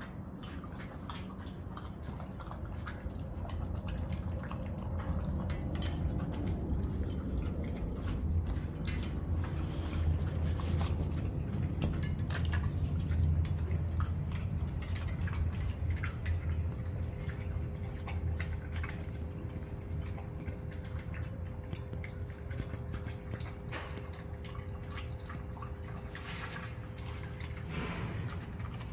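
Dog eating its dinner from a stainless steel bowl: a steady run of wet chewing, licking and small clicks against the metal.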